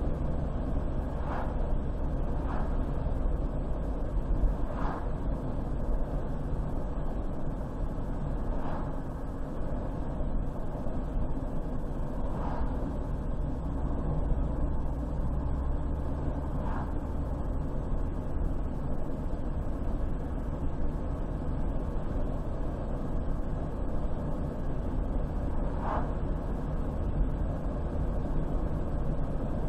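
Car driving along a road: steady engine and tyre noise, with a few brief knocks now and then.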